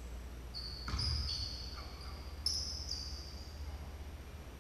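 Basketball bouncing on a hardwood gym floor, two sharp thuds about a second and a half apart, with sneakers squeaking in several short high squeals, over a steady low hum.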